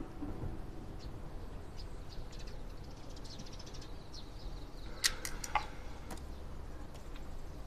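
A pen scratching faintly on paper as a bill is signed, then two or three sharp light clicks about five seconds in, over quiet room tone.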